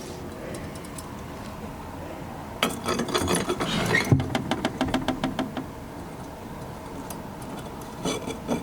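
Metal tools and small metal pieces being handled on a goldsmith's bench: a quick run of light clicks and rattles lasting about three seconds, then a few more clicks near the end.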